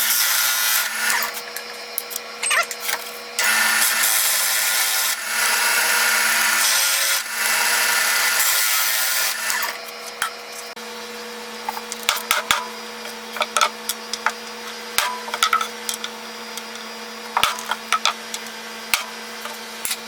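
Drill press running with a steady motor hum, its bit boring into wood in several long cutting passes through the first ten seconds, recessing holes for 1/4-inch T-nuts. After that the motor keeps running under scattered clicks and light knocks.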